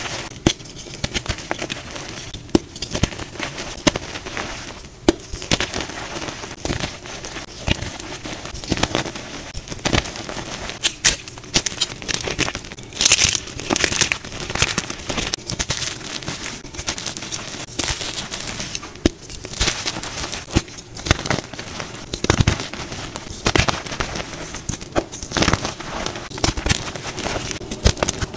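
Dyed gym chalk blocks squeezed and crumbled in bare hands: dense, irregular crunching made of many small sharp cracks as the blocks break apart and the powder pours.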